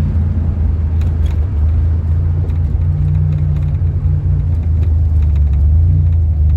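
Buick Grand National's turbocharged V6 heard from inside the cabin while driving, a steady low drone with a light wash of road noise.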